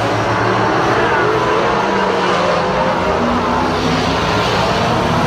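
A pack of stock cars racing, many engines running hard at once, their overlapping tones shifting in pitch as cars pass through the turn.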